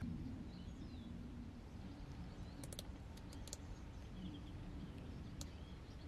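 Quiet background with a steady low hum, faint bird chirps and a few light clicks, mostly around the middle and once near the end.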